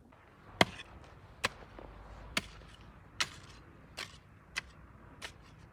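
A hand tool chopping with repeated sharp strikes, seven in all, a little under a second apart.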